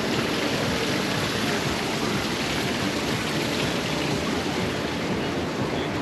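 Steady outdoor street ambience: an even wash of noise with faint voices of passers-by mixed in.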